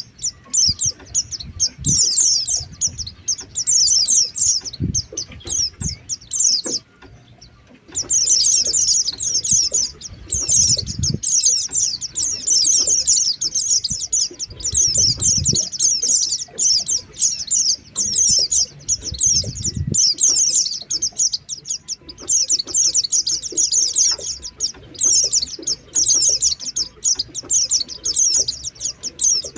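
White-eyes (pleci) giving the lure call, a high, rapid twittering in bursts of about a second with one short pause about seven seconds in; the call is used to draw wild white-eyes down. Low rumbles come now and then underneath.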